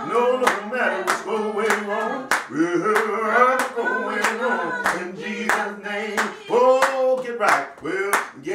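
A man singing a gospel song with hand clapping in time, about two claps a second.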